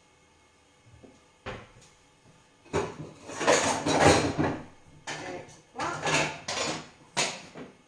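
Kitchen clatter of pots, pans and utensils being handled: a first knock about a second and a half in, then a run of loud clanks and scrapes from about three seconds in.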